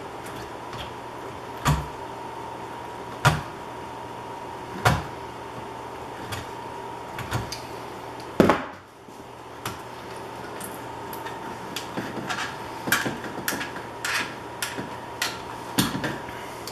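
Hands working the ground wires and tools at a wall switch box. Three knocks about a second and a half apart, a louder sharp knock about halfway through, then a run of small clicks toward the end, over a faint steady hum.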